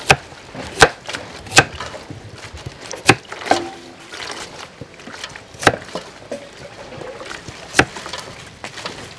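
Kitchen knife chopping a carrot on a thick round wooden chopping board: about half a dozen sharp knocks as the blade cuts through and strikes the wood, irregularly spaced a second or two apart.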